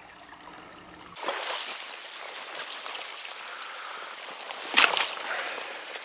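Shallow taiga stream running and splashing around a knee-deep wader, the water sound starting suddenly about a second in. A single sharp hit about five seconds in is the loudest sound.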